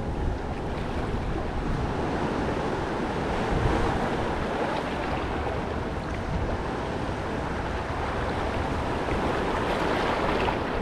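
Steady outdoor wind and water noise: wind buffeting the microphone over water washing at the shore.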